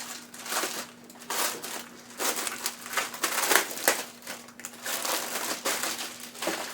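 A mechanical gaming keyboard's wrapping being crinkled and rustled in bursts as the keyboard is unwrapped.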